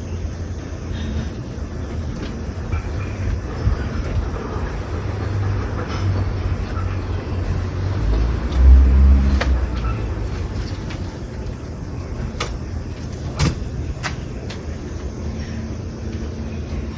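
Street traffic: a steady low engine rumble, with a vehicle passing close and growing much louder about eight to ten seconds in. A few short sharp clicks come in the second half.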